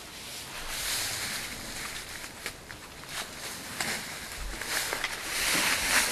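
Footsteps through brush: swells of rustling with scattered sharp snaps of twigs, loudest near the end.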